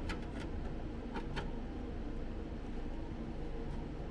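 Steady machine hum, like a fan running, with a few faint clicks and knocks of handling.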